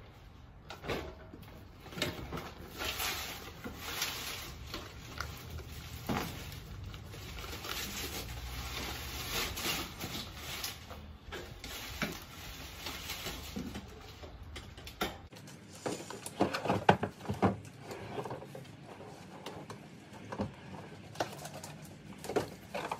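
Handling noises as a carpet-covered dual-subwoofer box is shifted and pulled out of a car's cargo area: rubbing and scuffing with scattered knocks, and a cluster of louder knocks about two-thirds of the way through.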